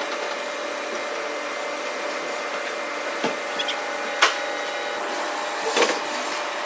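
Steady machine-shop hum and hiss with a faint constant tone, broken by a few light, sharp knocks, the loudest about four seconds in.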